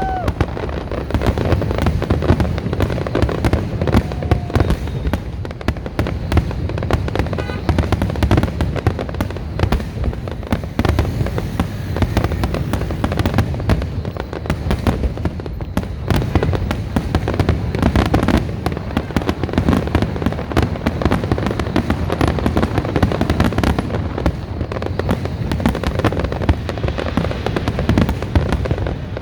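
A fireworks display with aerial shells bursting in rapid succession: continuous overlapping booms and crackles over a deep rumble, with a short whistle near the start.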